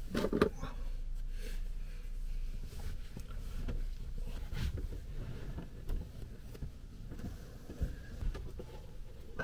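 Soft clothing rustle and a few light knocks as a person gets dressed and moves bedding around inside a small van, over a low steady hum that fades after the first few seconds.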